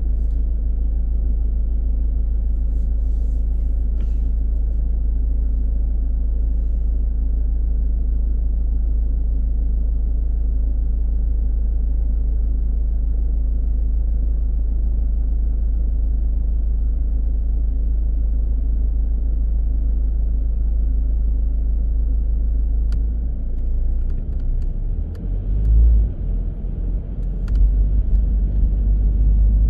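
A car driving, with a steady low rumble of road and engine noise. In the last few seconds the rumble turns uneven and louder, with a thump about 26 seconds in.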